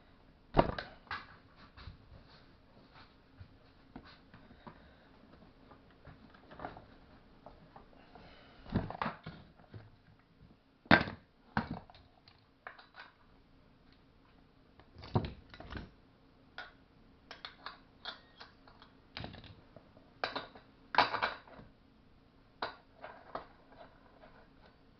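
Irregular clicks, clinks and knocks of metal tools and chainsaw parts being handled during reassembly, the sharpest about half a second in, about 11 seconds in and about 21 seconds in, over a faint steady hum.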